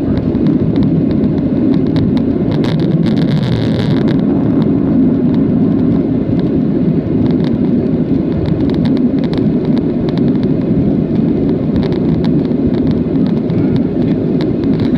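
Steady low roar of a Boeing 737-700 heard from inside the passenger cabin: engine and airflow noise in flight. A brief hiss about three seconds in, and faint scattered ticks throughout.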